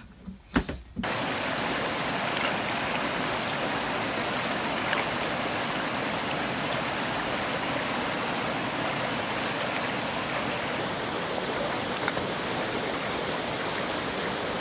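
Steady rush of a shallow creek running fast over rocks. It starts abruptly about a second in.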